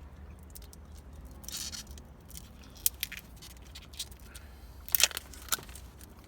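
Handling noise: a brief rustle about a second and a half in, then scattered sharp clicks and taps, the loudest near the end, over a steady low hum.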